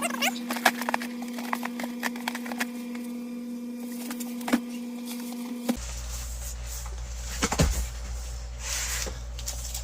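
Cardboard model-kit boxes and packaging being handled, with scattered clicks, knocks and rustles. A steady hum sits underneath and cuts off about six seconds in, giving way to a low rumble.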